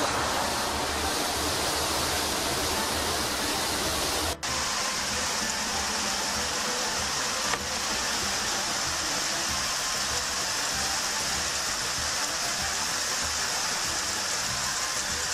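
Steady rushing, water-like noise from a pistachio hulling and washing machine and its waste-water outflow. About four seconds in it drops out for a moment and comes back hissier.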